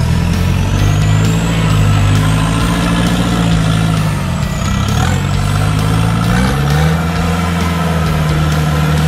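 Toyota off-road 4x4's engine labouring in low gear as it crawls up a muddy rut. The revs hold, sag about halfway through and pick up again, with a high whine rising and falling along with them.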